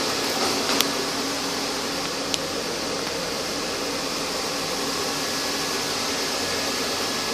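Steady whooshing hum inside the cab of a running 2006 Chevrolet Avalanche, fan-like, with two light clicks in the first few seconds.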